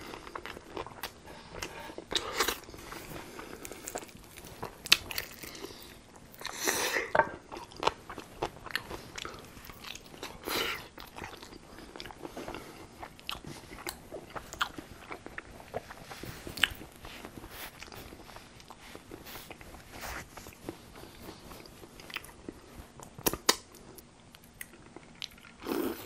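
Close-miked chewing and crunching of tempura-battered fried chicken wings: many sharp crunches and bites, scattered unevenly.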